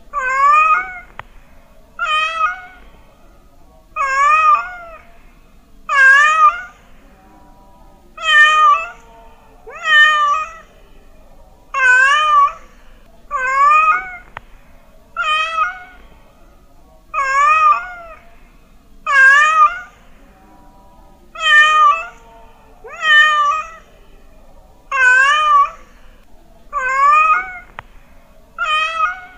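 Domestic cat meowing over and over, about one meow every two seconds. Each call is loud and under a second long, and its pitch wavers up and down.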